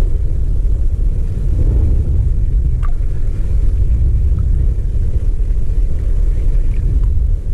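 Wind buffeting an action camera's microphone over open water: a loud, steady low rumble, with a faint click about three seconds in.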